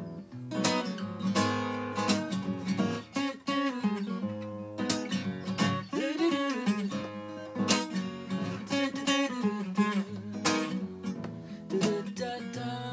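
Acoustic guitar strummed in a steady rhythm of chords, an instrumental passage between sung lines of the song.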